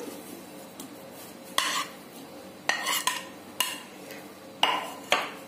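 Steel spoon stirring and scraping a thick grated-potato and semolina mixture in a kadhai, with about six short scrapes and knocks against the pan.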